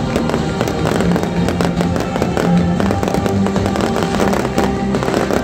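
A dense, rapid run of fireworks bangs and crackles, with music playing underneath.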